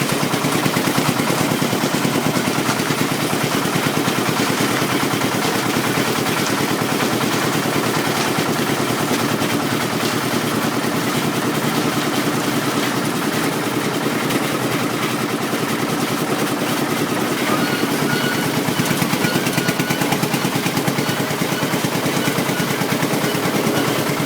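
Concrete mixer and elevator machinery running steadily, with a fast, even chugging of rapid knocks and a mechanical clatter throughout.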